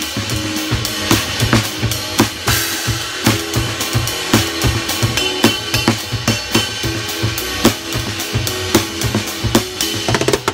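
Drum kit played with sticks in a steady, busy groove: strokes on the cymbals and drums over the bass drum, with both sticks working a small tom near the end.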